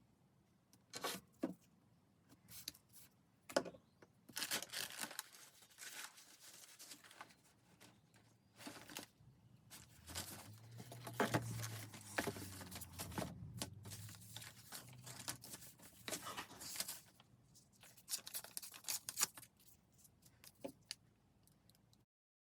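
Paper being handled: irregular rustling, crinkling and tearing-like swishes of paper and card, with scattered sharp taps and clicks. The sound stops abruptly near the end.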